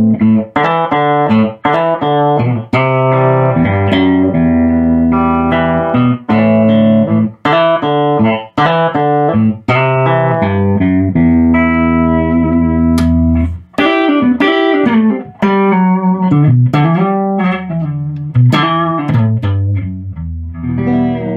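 Electric guitar played clean through the normal channel of a 1968 Fender Pro Reverb tube amp: a run of struck chords and picked notes, with notes bending in pitch in the second half. The amp is on test after repair and sounds really healthy.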